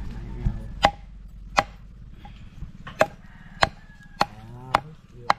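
A long-bladed knife chopping through a large whole fish on a wooden block: seven sharp strikes, spaced about half a second to a second and a half apart.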